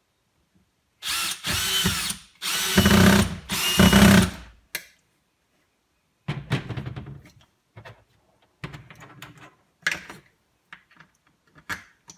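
Cordless drill/driver with an extension bit driving the mounting screws of a booster pump into the wall, in two runs of motor whine about a second apart. Then a few light clicks and knocks.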